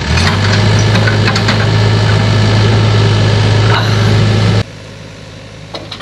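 Hyundai mini excavator's diesel engine running loud and steady with a deep hum. It cuts off abruptly about four and a half seconds in, leaving a quieter background with a few light clicks.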